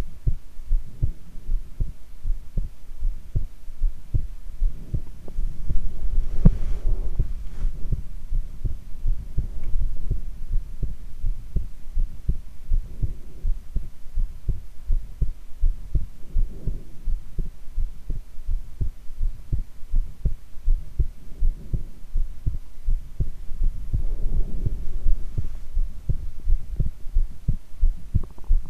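A woman's heartbeat: a steady, regular train of low lub-dub thumps.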